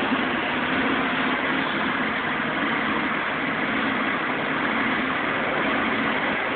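Toyota Supra engine idling steadily, with no revving.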